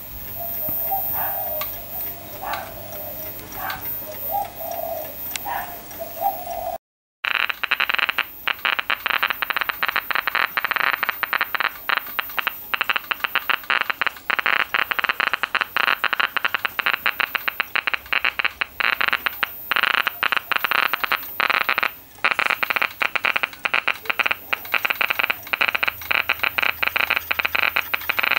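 Geiger counter clicking. First a few scattered clicks near a radio valve with uranium glass seals, then, after a brief break about seven seconds in, a dense, rapid crackle of clicks from the radiation of radium-painted clock dials.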